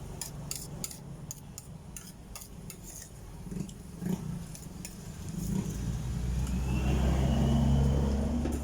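A motor vehicle passes close by, its engine growing louder with a faint rising whine to a peak near the end, then easing off. Before it arrives there are scattered small clicks and taps.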